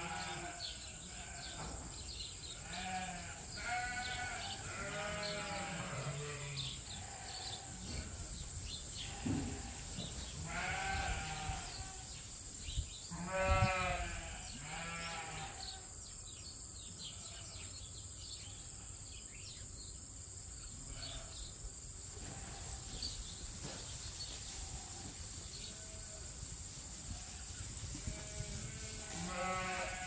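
A flock of sheep bleating, several overlapping calls with a wavering pitch, most of them in the first half and a few more near the end.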